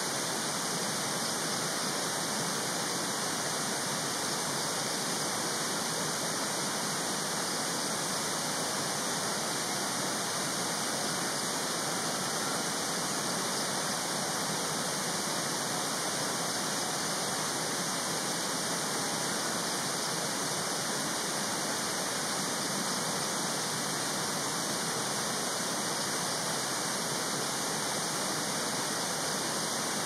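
Steady, even rushing noise with no change in level and no calls or other events.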